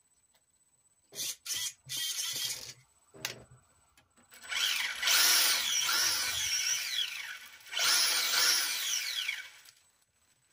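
Small electric motor whirring in a few short bursts, then in two longer runs of a few seconds each, its pitch sliding up and down.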